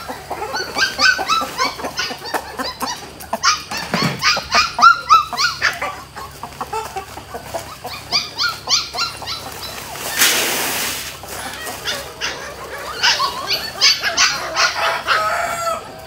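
A flock of chickens clucking and calling, many short calls overlapping. About ten seconds in comes a brief rush lasting about a second, grain feed poured from a sack into a metal hanging feeder.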